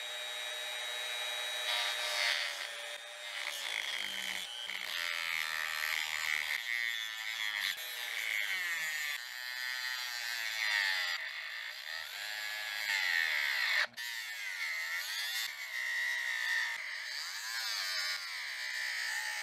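Rotary tool running a small abrasive cutoff wheel into a stainless steel washer. It gives a high whine whose pitch wavers and dips as the wheel bites into the metal, with a brief break about 14 seconds in.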